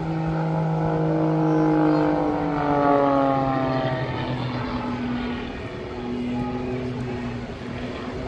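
Aerobatic Pitts Special's engine and propeller droning in flight, its pitch sliding down over the first few seconds, then holding lower and steady.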